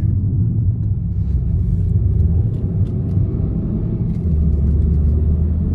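VW Jetta (MK6) driving along, a steady low engine and road rumble, with a low hum that grows steadier and a little louder about four seconds in. The engine is running smoothly under power after a bad cylinder 1 ignition coil was replaced, so the misfire and limp mode are gone.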